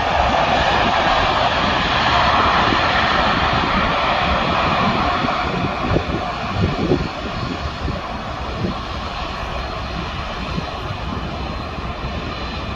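Boeing 747's jet engines with a loud, steady rush of noise as the airliner rolls out along the runway after touchdown. The noise eases a little after about seven seconds as it moves away, with a few low thumps near the middle.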